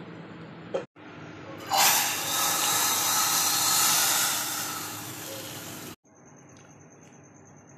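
Hot oil tempering with dried red chillies poured into dal, sizzling in a sudden loud hiss. The hiss starts about two seconds in, tapers off and cuts out about four seconds later.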